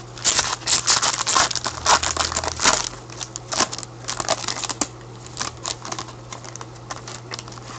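A trading card pack's wrapper being torn open and crinkled by gloved hands. The crinkling is loudest and densest in the first three seconds, then gives way to lighter rustling and handling of the wrapper and cards.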